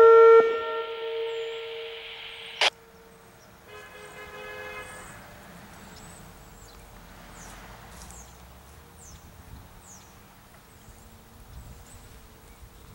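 Whelen Vortex R-4 electronic warning siren ending its hi-lo tone, two alternating pitches that cut off about half a second in. A hiss lingers and fades, ending in a single sharp click a couple of seconds later. After that there is a faint distant tone for about a second, then quiet outdoor ambience with faint high chirps.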